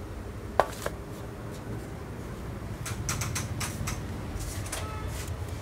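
Steady low background hum of a shop, with one sharp click a little after half a second in and a scatter of short rustles in the second half, the sort made by handling plastic packaging or the camera.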